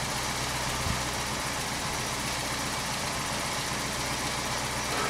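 Citroën DS engine idling steadily while the hydropneumatic suspension raises the car to the next height setting.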